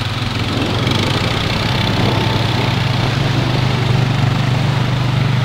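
Single-cylinder ATV engine running steadily, close by, growing a little louder over the first second while the quads wade through flood water.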